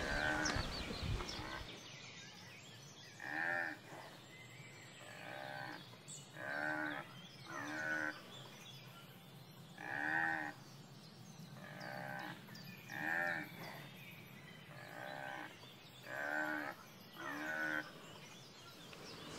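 Greek water buffaloes calling: about a dozen short moos, one every one to two seconds.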